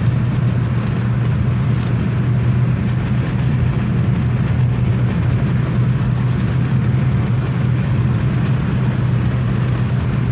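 Steady road and engine noise inside a car's cabin while it cruises at highway speed, a constant low hum under a wide hiss of tyre and wind noise.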